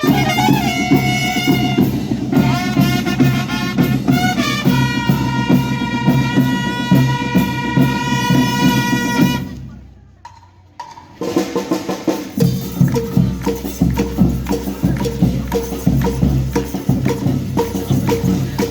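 School rhythm band playing: a melody over steady drumming that breaks off about halfway through. After a second or two of near quiet, the drums and percussion come back in.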